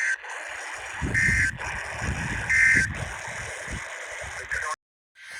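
Emergency Alert System end-of-message data bursts: three short, shrill two-tone digital squawks about a second and a half apart, marking the end of the warning. They sit over steady radio hiss with some low rumble, and the audio cuts out to silence briefly near the end.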